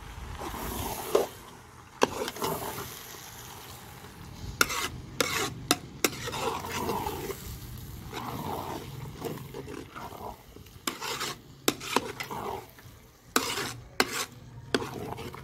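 A long metal ladle stirring a thick mayonnaise-and-vegetable mixture in a large metal cooking pot, with wet stirring sounds and repeated sharp knocks and scrapes of the ladle against the pot's sides. The food sizzles in the hot pot underneath.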